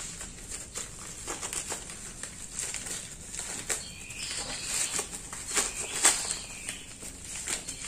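Plastic parcel packaging rustling and crinkling in irregular crackles as a package is opened by hand.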